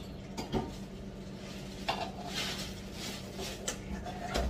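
Light kitchen clatter of dishes and cutlery clinking, with a few sharp clicks, over a faint steady hum, and a dull thump at the very end.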